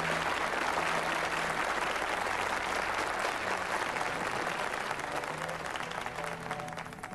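Audience applauding, a dense steady clapping that eases off over the last couple of seconds.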